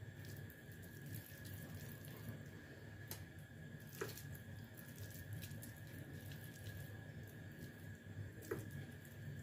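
Faint handling sounds of hands rolling seasoned minced meat (kefta) into small balls, with a light tap about four seconds in and another near the end, over a steady faint high-pitched hum.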